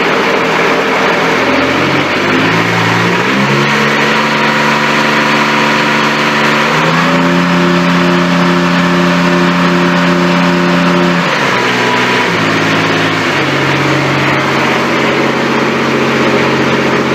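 Grasshopper 721D mower's diesel engine running, throttled up from idle in steps, held at high speed for about four seconds, then brought back down in two steps to a steady idle. It is being revved to check that the charging system is working after a battery replacement, shortly after a cold start in freezing weather.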